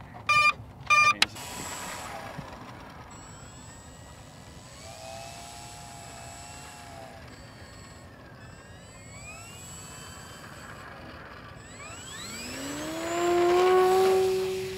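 Electric RC plane on its takeoff roll: a few short beeps in the first second, faint wavering tones through the middle, then from about twelve seconds in the brushless motor and propeller of the 3D-printed Notos wind up into a rising whine at takeoff throttle, loudest near the end.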